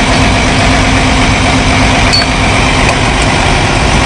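Cat 349 excavator's diesel engine running steadily at a low, even speed.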